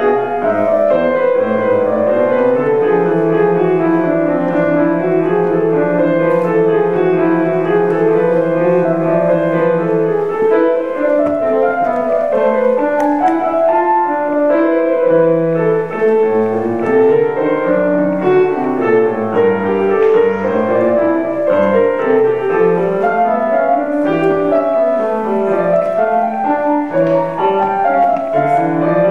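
Grand piano played solo: an unbroken stream of notes in flowing figures that rise and fall, over held bass notes.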